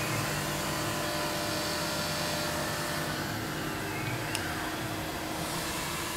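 Tormach PCNC 1100 CNC mill running, its spindle driving a flat end mill through a roughing waterline pass in 6061 aluminum: a steady machining whir with faint rising and falling tones. A single sharp click about four seconds in.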